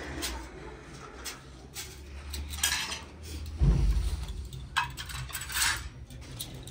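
Dishes and cutlery clinking and clattering at a meal, with scattered sharp clicks and short rustles. A heavy low thump about three and a half seconds in is the loudest sound.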